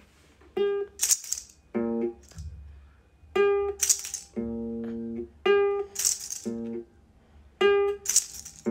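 A short musical sequence repeated about three times: a brief held tone, a quick shake of a rattle, then a longer steady tone of about a second.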